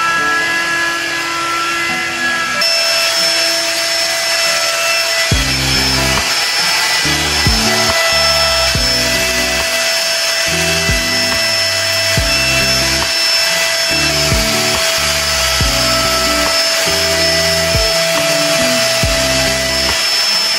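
Handheld hair dryer running steadily, its motor and airflow a constant whoosh, mixed with background music whose bass beat comes in about five seconds in.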